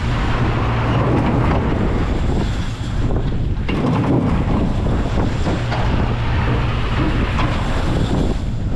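Wind buffeting the microphone of a spinning Garbrick Merry Mixer scrambler ride car, over a steady low mechanical hum from the ride.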